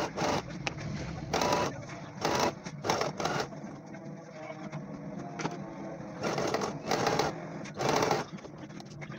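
Godeco electric sewing machine stitching in short runs of under a second, about nine times, over a steady low hum.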